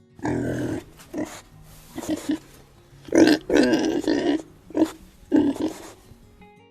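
Domestic pig vocalising: a series of about six loud calls, the longest lasting about a second and a half near the middle.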